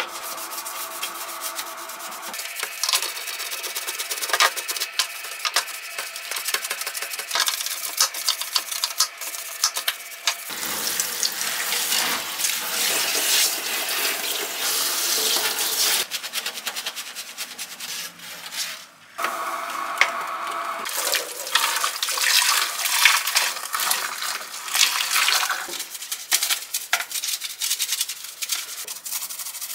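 Scrubbing plastic dish-rack parts with a small detergent-soaked brush at a stainless steel sink, with tap water running and splashing. Brush scraping alternates with short clicks and knocks of plastic against the sink.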